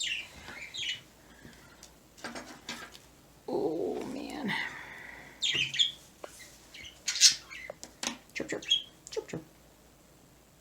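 Pet birds chirping in short, sharp calls, with one longer, fuller call about three and a half seconds in.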